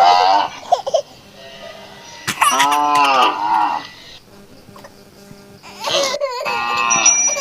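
Cattle mooing: three long calls, each rising and then falling in pitch. The longest comes a little past the middle and lasts over a second.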